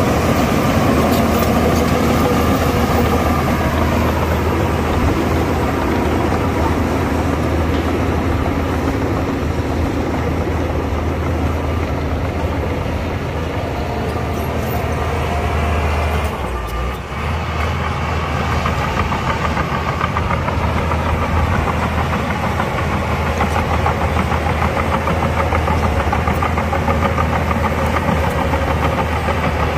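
Heavy earthmoving machinery at work: the diesel engines of a bulldozer and dump trucks running steadily, with a short dip in level about seventeen seconds in.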